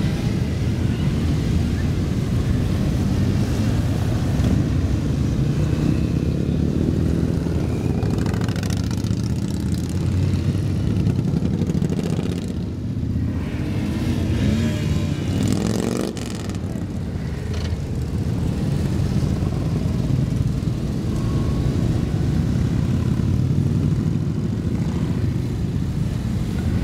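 A procession of mixed motorcycles (cruisers, heavy touring bikes, sport bikes and a scooter) riding past one after another at low speed. Their engines make a continuous mix, with single bikes' engine notes rising and falling as they pass.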